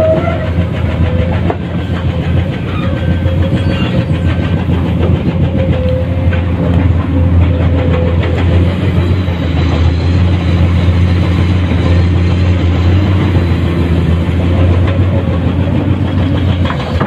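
Komatsu PC210-10 hydraulic excavator's diesel engine running steadily under digging load, with a faint steady whine over the drone.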